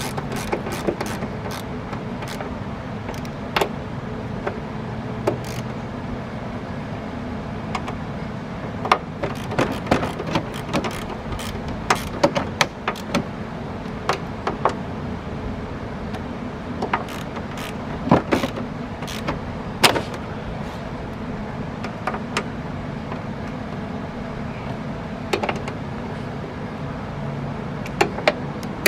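Ratchet wrench and metal tool clicks and knocks on a car's door hinge bracket bolts as they are tightened, in scattered bursts over a steady low hum.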